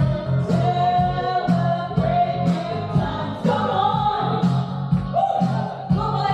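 A song with singing over a steady beat of about two beats a second.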